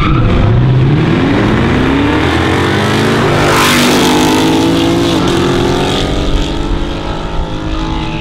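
Two cars racing from a street launch, engines revving hard and climbing in pitch as they accelerate, with a brief dip and re-rise where a gear changes. They pass loudly about three and a half seconds in, and the engine sound then draws away.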